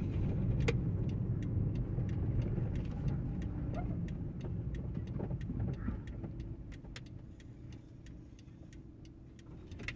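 Car's engine and road rumble heard from inside the cabin while driving slowly, with a turn-signal relay clicking steadily about three times a second. The rumble fades as the car slows near the end.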